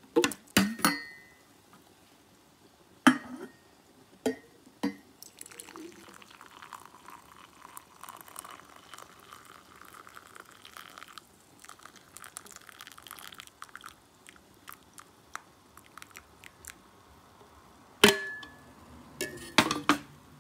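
Metal kettle clinking and knocking against a ceramic mug, with hot water pouring from the kettle into the mug for several seconds in the middle. More sharp clatter comes near the end as the kettle is set down.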